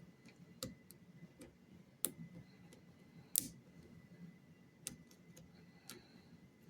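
Small metal clicks and ticks of lock picking tools working inside a lock: a few sharp, irregular clicks, the loudest about three and a half seconds in. A faint steady high tone runs underneath.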